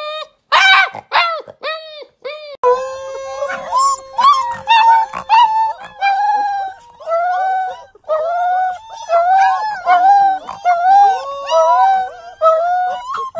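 Husky puppies howling: a few short rising-and-falling yips at first, then a long run of wavering high howls, with a steadier, lower held note underneath for several seconds.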